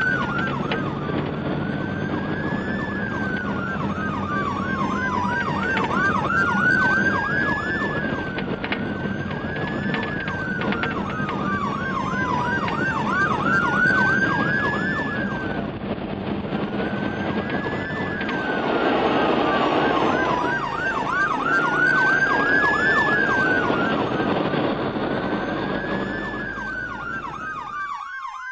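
Emergency vehicle siren going continuously, a slow rising-and-falling wail about every three seconds mixed with a fast warbling yelp, over the low rumble of car and traffic noise. Near the end the rumble cuts off while the siren carries on.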